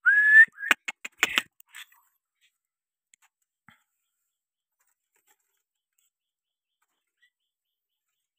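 A male myna gives one short rising whistled call, followed by a few short clicks about a second in.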